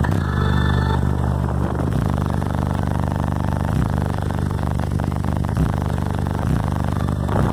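Loud, bass-heavy hip-hop played through a car-audio competition subwoofer system, deep sustained bass notes dominating with little sound above them.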